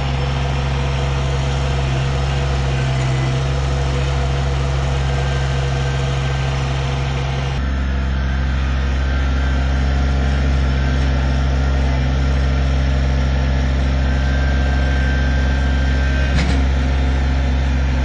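Kubota compact tractor's diesel engine running steadily while its front loader works, heard close up; its note shifts about seven and a half seconds in.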